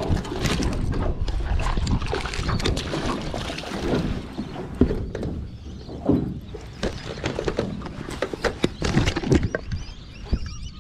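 Water splashing and sloshing in irregular bursts, with short sharp knocks and splashes scattered through it.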